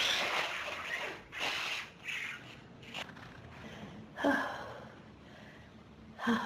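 A person gasping and breathing hard between sneezes in an allergy sneezing fit. Sharp, partly voiced bursts come about four seconds in and again near the end.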